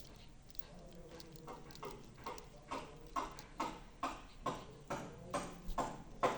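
Small sharp clicks at about two or three a second, growing louder after the first couple of seconds, as the parts of a BNC connector are handled and turned.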